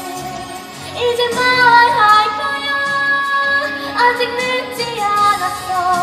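A female voice singing slow held notes of a song over a recorded backing track.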